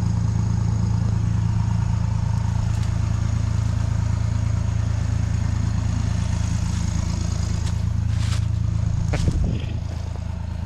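An engine idling steadily, with a brief knock about nine seconds in, after which it runs a little quieter.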